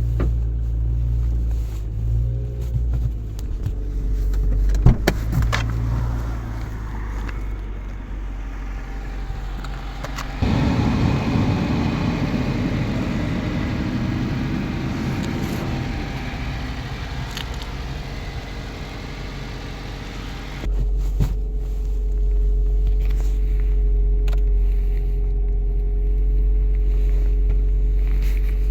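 A motor vehicle running, with a steady low rumble. There is a rougher, louder stretch of noise in the middle, and a steady hum afterwards.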